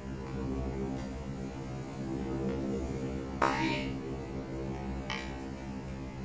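Tennis ball being struck by a racket: a sharp crack about three and a half seconds in and a fainter one near five seconds, over a steady low hum.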